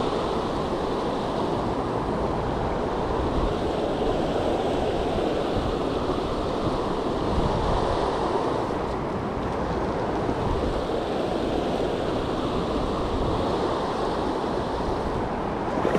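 River water rushing over a shallow, rocky riffle: a steady, even rush.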